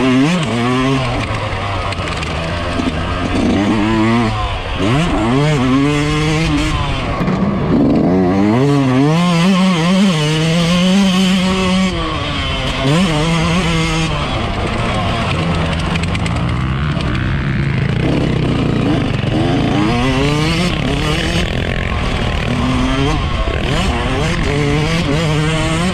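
Yamaha YZ125's two-stroke single-cylinder engine, heard from on board, revving up and dropping back again and again as the rider accelerates, shifts and rolls off around the dirt track.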